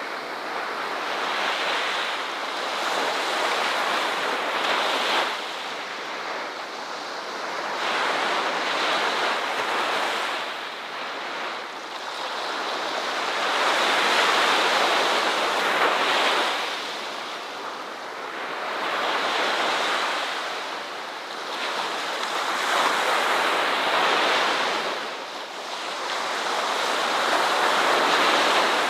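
Ocean waves breaking and washing onto a beach, the surf rising and falling in slow swells every few seconds.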